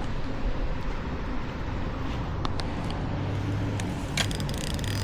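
A distant engine humming steadily under a wash of outdoor background noise, with a few light clicks.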